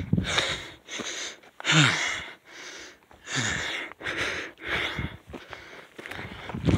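A man breathing hard and loud, puffing out and drawing in about once a second, some breaths voiced: winded from running and fast-walking up a steep hill.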